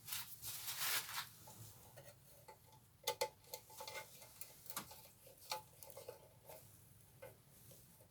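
Light clicks and taps of small parts being handled and fitted onto a bench grinder during assembly, with a short rustling scrape in the first second.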